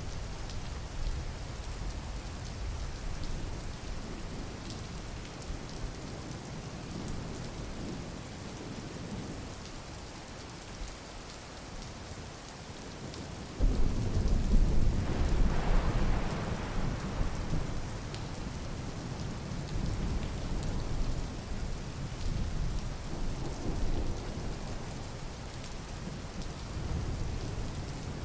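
Steady rain falling, with a clap of thunder about halfway through that rumbles low for several seconds and dies away.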